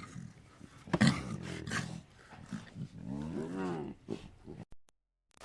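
An animal's calls: a sudden loud call about a second in, then a longer call that rises and falls in pitch, ending in a brief dead silence near the end.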